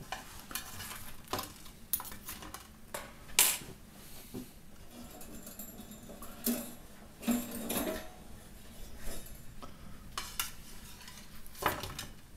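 Metal spoon clinking and scraping against a ceramic plate and metal skewers as fried chicken balls are pushed off the skewers: irregular sharp clinks and knocks, the loudest about three and a half seconds in.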